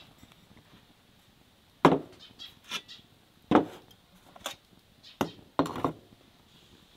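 Clay bowls and a metal tray being set down and shifted on a wooden table: a series of about seven sharp knocks and clatters over a few seconds, the first the loudest.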